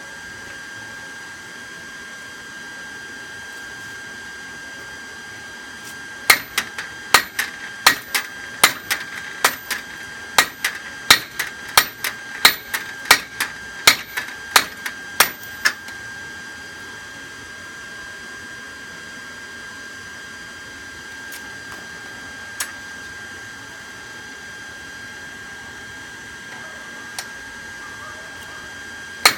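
Hammer blows on steel over a railroad-track anvil: about ten seconds of sharp, ringing strikes at roughly two a second, then a few scattered single blows.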